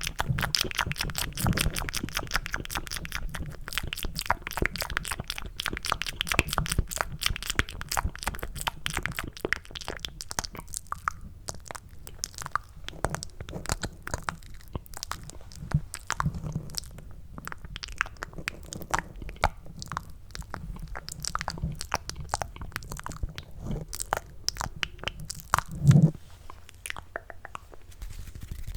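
Cupped ASMR mouth sounds close to the microphone: rapid clicks and smacks made to sound like eating mac and cheese. They are dense at first, thin out from about ten seconds in, and one louder low pop comes near the end.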